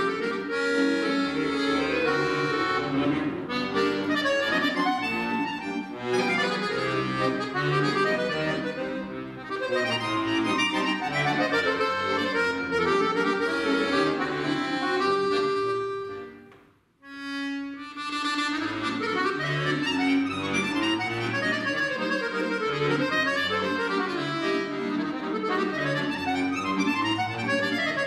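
Solo accordion playing a busy passage with many quick notes. About two-thirds of the way through, the music breaks off for a brief pause and resumes on a held chord.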